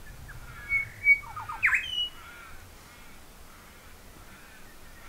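Crows calling: faint repeated caws throughout, with a louder burst of squawks and short whistled notes about a second in.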